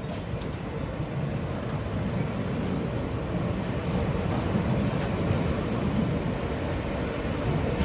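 Passing train's steady low rumble, growing slowly louder as it draws nearer, with a thin high whine running under it.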